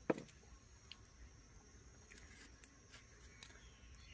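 Quiet handling sounds of a small persimmon picked from a plate and peeled with a small knife. A single sharp knock comes just after the start, followed by faint scattered ticks and scrapes.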